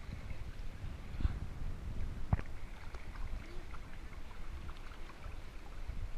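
Sea water sloshing and lapping against a GoPro's waterproof housing held at the surface, a steady low rumble with two sharper water slaps about a second and two seconds in.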